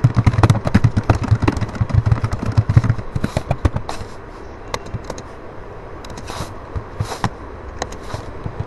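Computer keyboard typing: rapid clicking keystrokes for about the first three seconds, thinning to scattered clicks after about four seconds. A low hum runs under the fast typing and fades at about three seconds.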